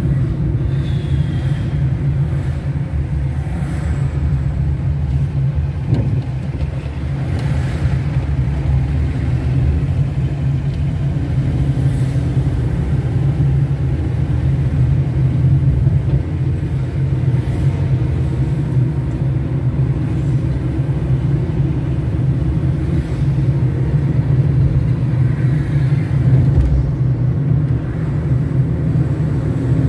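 A car driving steadily along a city road: a constant low rumble of engine and tyre noise.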